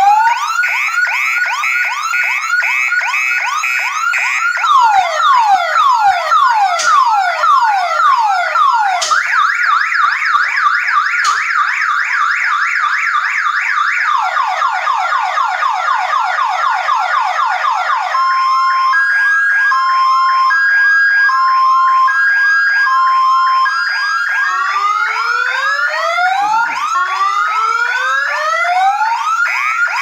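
Electronic security-alarm horn sirens sounding, cycling through their tones: rapid chirps, then falling sweeps from about four seconds, a fast warble from about nine seconds, quicker sweeps from about fourteen, a slow alternating two-tone beep from about eighteen, rising wails from about twenty-four, and back to rapid chirps near the end.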